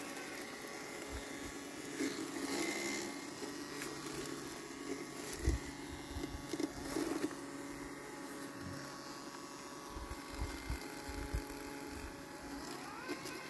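LandXcape LX790 robotic lawn mower running as it mows wet weeds, its electric motors giving a steady, quiet hum. A few short low thumps come through, one about halfway and a cluster near the end.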